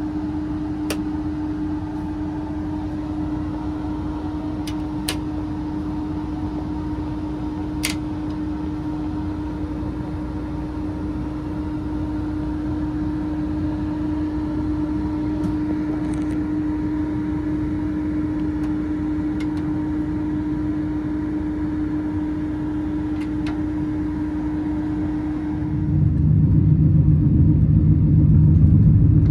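Steady hum of a standing passenger train's onboard machinery, such as air conditioning and generator, heard inside a sleeper compartment, with one constant tone and a few light clicks. About 26 seconds in it gives way to a louder, deeper rumble.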